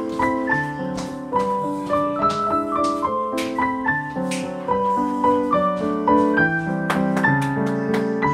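Background piano music: a flowing melody of struck notes over lower chords, at a steady moderate pace.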